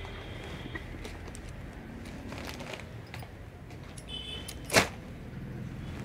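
Clothing being handled: soft rustling, then one sharp swish about five seconds in as fabric is flicked or shaken out.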